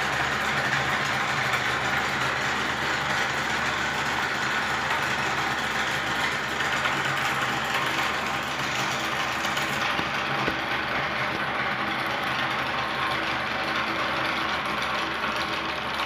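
The small electric motors and cooling fan of a homemade model combine harvester running, giving a steady whirring hum. The hiss in the highest part of the sound drops away a little about ten seconds in.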